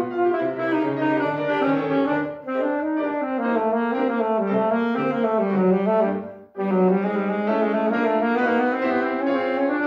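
Alto saxophone playing quick runs of notes with grand piano accompaniment, breaking off briefly twice to breathe.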